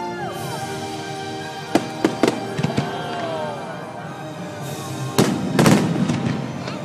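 Aerial fireworks shells bursting, heard over the show's music playing on loudspeakers: a few sharp bangs about two seconds in, then a louder cluster of bangs a little after five seconds.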